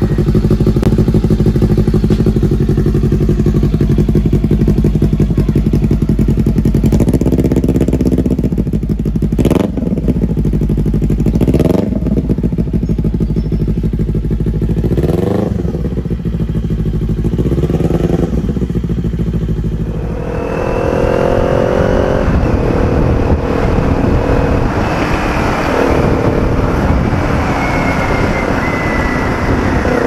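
Kawasaki Z400 parallel-twin engine through an aftermarket Akrapovic-style carbon-tip slip-on exhaust, idling steadily, then blipped several times so the revs rise and fall sharply. About two-thirds of the way in it is under way instead, the pitch climbing and dropping back through several gear changes.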